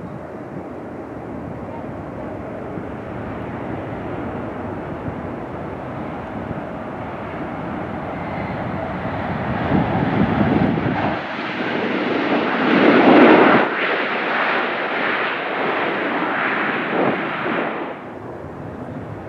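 Boeing 737 jet landing: a steady engine rush that grows louder as it comes in and touches down, then a louder surge from reverse thrust on the rollout, loudest about two-thirds of the way in, that cuts off suddenly near the end as the reversers are stowed.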